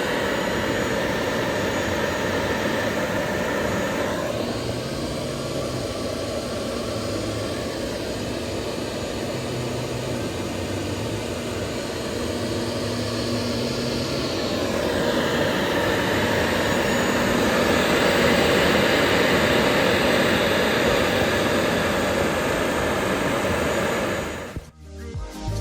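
CNC router spindle with a 45° V-bit, turning at about 14,200 rpm, V-carving lettering into plywood: a steady whine with cutting noise, which eases in its upper range for about ten seconds partway through. Music cuts in just before the end.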